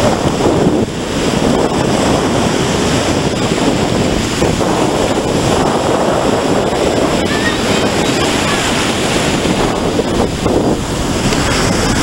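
Surf washing up the beach and foaming around the sand banks, with wind buffeting the microphone.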